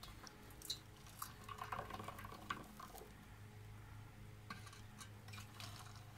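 Molten zinc poured from a small metal crucible into a metal muffin tin: a faint trickle with light ticks and clinks, over a low steady hum.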